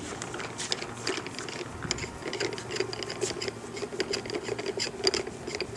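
Handling noise of a Planet Eclipse Geo 2.1 paintball marker being picked up and moved about: irregular small clicks, knocks and rattles, over a faint steady hum.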